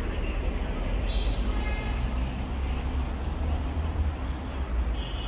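Outdoor city ambience: a steady low rumble of road traffic, with a brief higher sound about a second in.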